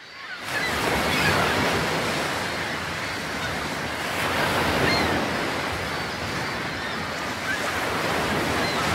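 Ocean surf breaking and washing ashore, a steady rush that fades in at the start and swells gently a couple of times.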